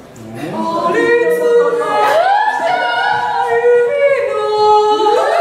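Unaccompanied singing, with long held notes that slide from one pitch to the next. It swells up out of a quiet moment about half a second in.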